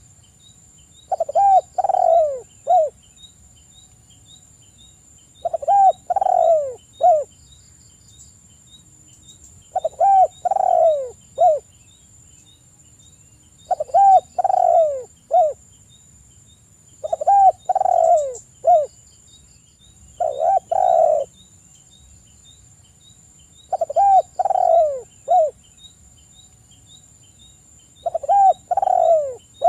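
Spotted dove cooing: a phrase of about three falling coos, repeated roughly every four seconds, eight times.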